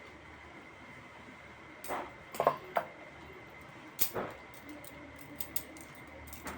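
Balisong (butterfly knife) handles and blade clacking together as it is flipped and swung: a quick cluster of metallic clacks about two seconds in, another sharp clack about four seconds in, then lighter ticks.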